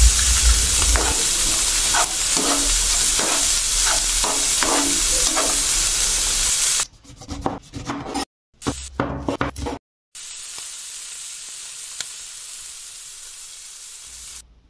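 Food sizzling loudly in a frying pan as an egg is stir-fried into a spiced peas mixture, with a metal spatula scraping through it in a run of strokes. About seven seconds in, a few separate knife chops on a wooden cutting board break the sizzling. From about ten seconds in, a steady, quieter sizzle takes over.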